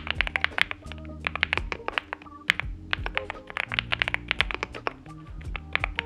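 Fast typing on a NuPhy Gem80 mechanical keyboard with factory-lubed, unmodded NuPhy Mint linear switches and mSA double-shot PBT keycaps: a quick run of key clacks with brief pauses. Background music with low held notes plays underneath.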